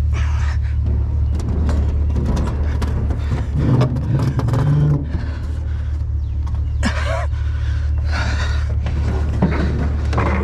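Truck engine idling steadily, with irregular knocks and clatter over it.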